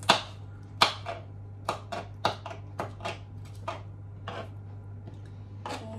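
Kitchen knife dicing red chillies on a plastic cutting board: sharp, irregular taps of the blade striking the board, a couple a second.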